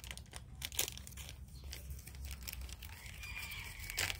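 Light rustling with a scatter of small clicks and knocks, things being handled on a work surface, over a steady low hum.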